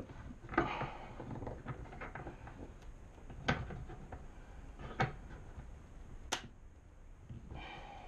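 Light handling noise of a wooden block and a metal bench clamp being worked on a workbench, with a few sharp clicks and knocks as the block is set and the clamp is tightened.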